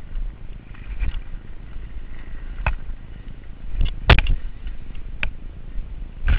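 Giant Reign mountain bike riding fast down a dirt singletrack: a steady low rumble of wind and tyres on the camera microphone, broken by sharp clacks and knocks from the bike over bumps. The loudest knock comes about four seconds in.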